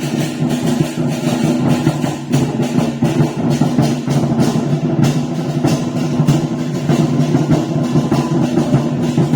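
Traditional temple ceremonial music: steady pitched instruments sustaining tones over dense, rapid drum and percussion strokes.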